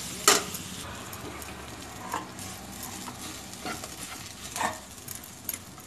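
Flat spatula stirring and scraping a mashed potato and onion filling in a nonstick kadhai over a steady frying sizzle, with occasional sharp taps of the spatula against the pan, the loudest about a third of a second in.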